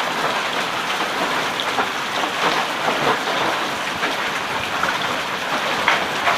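Heavy downpour with hail: a steady hiss of rain with many sharp, irregular taps of hailstones striking and shattering.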